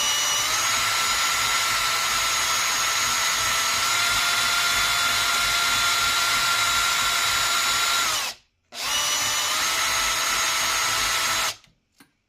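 Cordless drill running under load with a high-speed steel bit, cutting a gas-block dimple into an FN AR-15 barrel through a dimple jig. A steady whine stops briefly about eight seconds in, starts again and runs a few more seconds before stopping near the end.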